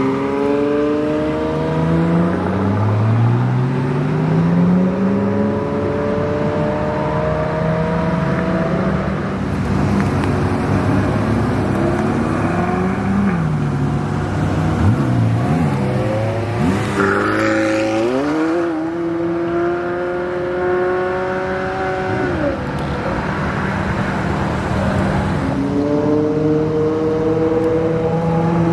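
Supercar and sports car engines accelerating hard, several cars in turn. Each engine's pitch climbs, then drops back at an upshift and climbs again, with some quick throttle blips about halfway through.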